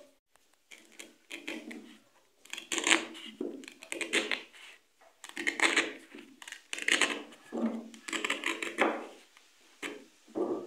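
A kitchen knife cutting through the husks of fresh ears of corn on a wooden board, with crisp husk rustling, in a string of short strokes a second or so apart.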